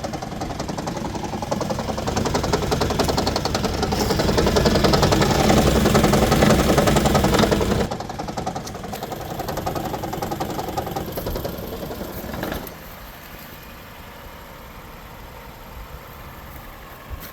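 Toyota Highlander hybrid's gasoline engine running rough, with a rapid uneven pulsing and knocking. It is misfiring on every cylinder, with the check engine light on. The engine gets louder over the first several seconds, drops back sharply about eight seconds in, and falls much quieter near the end.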